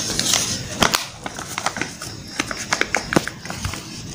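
Sheet of paper crinkling and rustling as it is folded and creased by hand, with many irregular sharp crackles.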